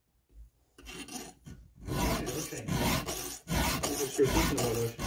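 Round chainsaw file rasping across the cutters of a chain held in a bench vise: a light stroke about a second in, then about four firmer, even strokes. The chain is being sharpened after being dulled by cutting into a rock.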